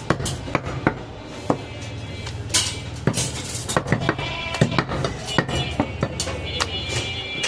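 Butcher chopping goat meat with a knife, a sharp knock against the block every half second or so at an irregular pace.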